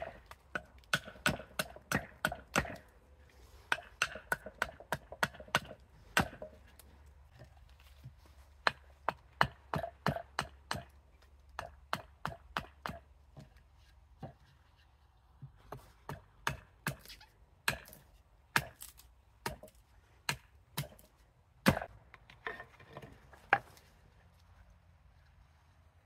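Fadir 860 g carving axe chopping into an ornamental cherry spoon blank held on a chopping block: sharp, separate knocks about two or three a second, in runs with short pauses, stopping about two seconds before the end.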